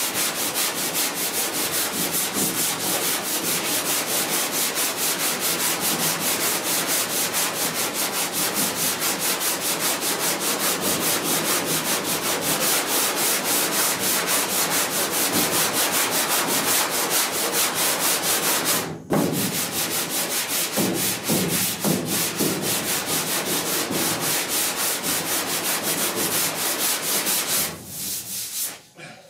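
Hand block sanding of body filler: rapid back-and-forth rasping strokes of sandpaper on a sanding block, feathering the filler's edges. The strokes break off briefly about two-thirds of the way through and die away just before the end.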